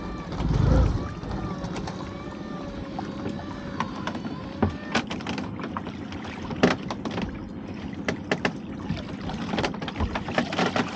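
Lobster pot hauled up on its rope alongside a small boat: a low thump about a second in, then a run of knocks and clicks as the rope and pot come against the hull, with water sloshing as the pot breaks the surface.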